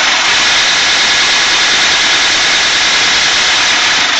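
Corded Milwaukee power drill running steadily, spinning the reel of a Great States push reel mower so that its blades scrape against the oiled bed knife: back-lapping to sharpen the reel.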